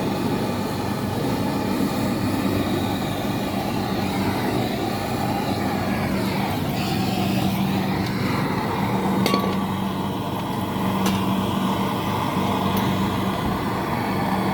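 Steady machinery hum with a constant low drone, a sweeping sound that rises and falls in the middle, and a few sharp clicks in the second half.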